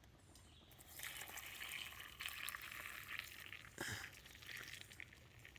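Hot water being poured into a mug of instant coffee and breakfast-drink mix. It starts about a second in, runs steadily for a couple of seconds and then tails off, with a light knock near the end.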